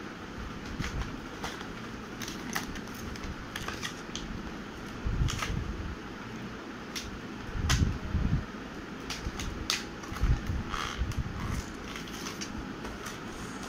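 Cardboard packaging being handled and opened by hand: scattered light clicks and rustles with a few dull thumps, the loudest about eight seconds in, over the steady hum of a room fan.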